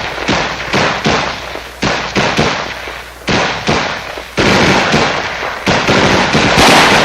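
Rifle gunfire: an irregular, rapid string of shots and short bursts, each crack trailing off, turning denser and nearly continuous about four seconds in.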